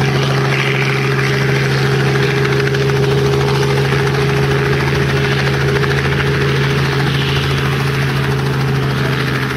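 Robinson R44 Clipper II helicopter, with its six-cylinder Lycoming piston engine and rotors running at a steady pitch as it sets down on its skids and sits running on the ground.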